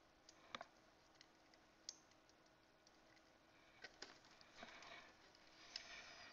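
Faint, scattered clicks and taps of a computer keyboard and mouse, a few irregular strokes with a small cluster around four to five seconds in, over a faint steady hum.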